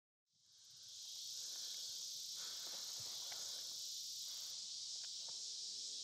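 Steady, faint, high chorus of insects fading in over the first second, with a few faint ticks and rustles.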